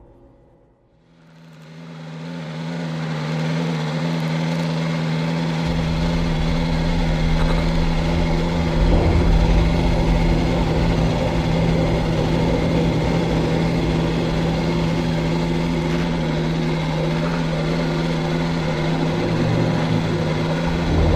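Engine running steadily at an even pitch, fading in over the first few seconds, with a deeper rumble joining about five seconds in.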